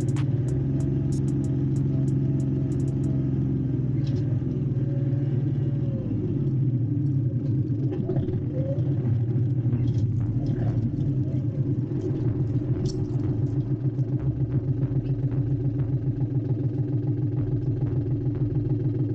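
An engine running steadily at low speed, its deep rumble settling into an even pulse in the second half, with a few light clicks and clatters over it.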